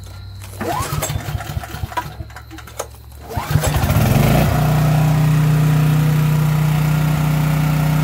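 Briggs & Stratton 1650 Series single-cylinder engine on a portable generator being pull-started by its recoil rope: the first pull cranks it over without it catching, a second pull a little past three seconds in catches, and the engine settles into a steady run.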